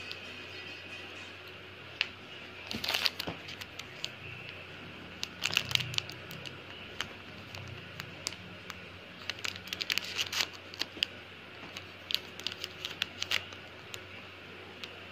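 Crinkling and rustling in four short bursts, as material is handled.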